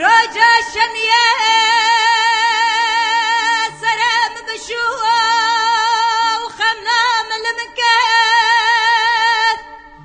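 A woman singing a Kurdish folk song in long, held, ornamented phrases with strong vibrato, with a few short breaks for breath. The voice stops shortly before the end, leaving a quiet instrumental accompaniment.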